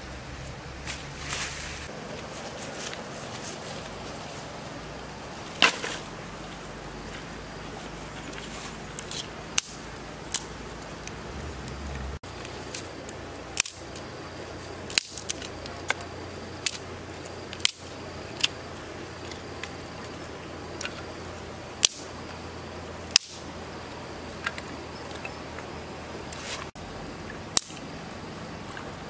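Sharp snaps and clicks every second or two over a steady outdoor hiss: dry sticks being broken and handled for firewood.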